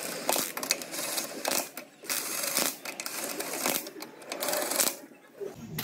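Impact wrench hammering in several short bursts as it runs wheel nuts tight, stopping about five seconds in.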